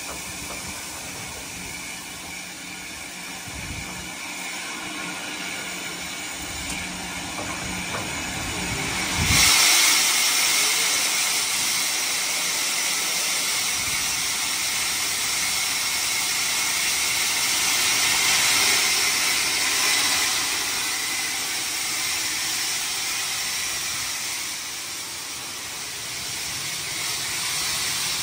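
Steam hissing from the steam locomotive 45596 Bahamas, an LMS Jubilee 4-6-0: a steady hiss that turns suddenly much louder about nine seconds in and stays loud.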